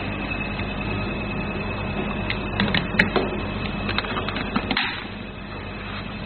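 Plastic clicks and knocks of an IPL machine's handpiece connector being handled and pushed into its socket, a few sharp clicks in two clusters, over a steady hum with a thin high whine.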